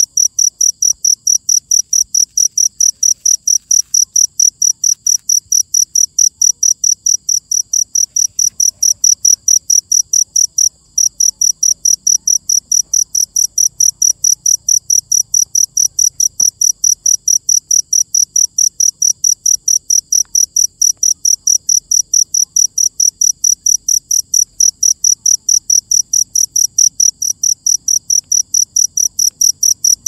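Cricket chirping in a steady, even rhythm, about four high-pitched chirps a second, with one brief break a little under eleven seconds in.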